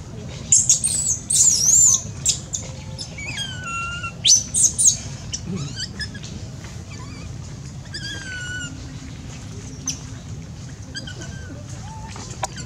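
Baby long-tailed macaque crying: loud, high-pitched screeches in the first two seconds and again around four to five seconds in, with shorter falling cries in between and later.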